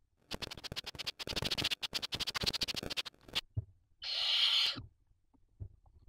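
Barn owl calls in the nest: a rapid stuttering, rasping run of clicks lasting about three seconds, then, about four seconds in, a short hiss of under a second.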